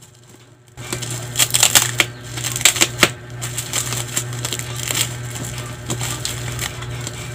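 Plastic packaging and bubble wrap crinkling and crackling as a mailer is pulled and torn open by hand, starting about a second in, with sharp crackles throughout. A low steady hum sits underneath.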